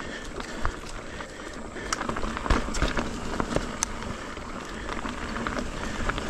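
Ibis Ripley AF mountain bike rolling over a rooty dirt trail: a steady crunch and hiss from the tyres, broken by irregular knocks and rattles as the bike goes over roots.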